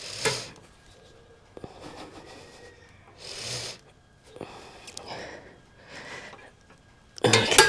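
Short, hard breaths of effort, one every second or so, with faint metal clicks while a kickstand return spring is stretched by hand. Near the end a sudden loud metallic clank with brief ringing as the spring snaps onto its post.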